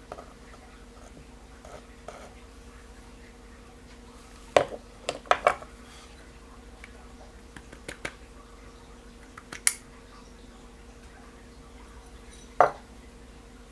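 Small metal parts of a spinning reel's drag being handled and set down, giving scattered sharp clicks and clinks: a quick cluster about a third of the way in, a few more later, and a last one near the end.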